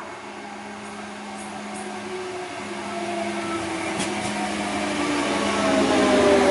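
Diesel railcar pulling into a station platform, growing steadily louder as it comes alongside, with a whine that slowly falls in pitch as it slows.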